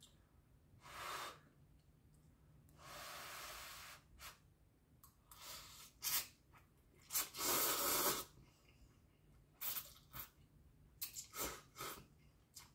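Breathy mouth and nose sounds from a woman eating very spicy instant noodles: scattered noisy bursts with a long hiss about three seconds in, the loudest burst about two-thirds of the way through, and a few short sharp ones near the end.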